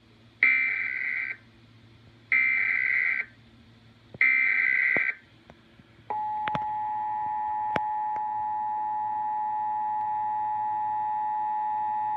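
Emergency Alert System test tones. First come three short bursts of SAME header data, each about a second long and a second apart. About six seconds in, the steady two-tone attention signal starts and holds, with a couple of faint clicks over it.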